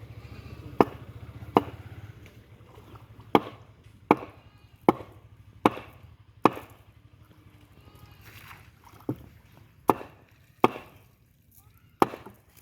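A blade chopping wood for a raft: about eleven sharp, evenly paced chops, a little more than one a second, in runs with a short pause in the middle.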